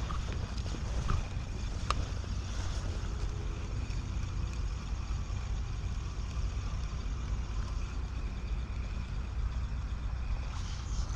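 A steady low rumble of outdoor background noise, with a couple of light clicks in the first two seconds.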